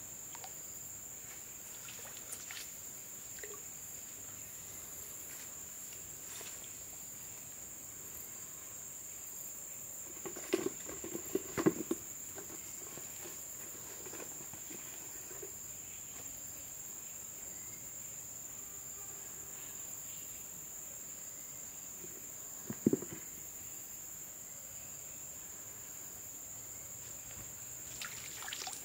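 Steady, high-pitched trilling of insects in the pond-side vegetation. A few short knocks and rustles break in about a third of the way through and once more about two thirds through.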